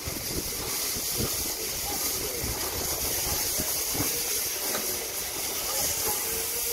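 AD60-class Beyer-Garratt steam locomotive 6029 rolling slowly into a station platform, steam hissing steadily over the low rumble of the train and scattered knocks from its running gear.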